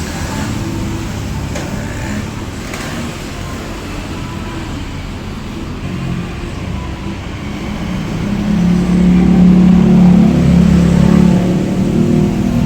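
A motor vehicle's engine running, growing louder about two-thirds of the way in with a strong low hum, then easing off near the end.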